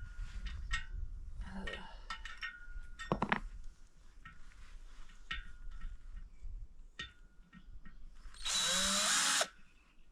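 Small clicks and knocks of screws and tools being handled, with one sharp knock about three seconds in. Near the end a drill driver runs hard for about a second, driving a screw for metal into a fence pole.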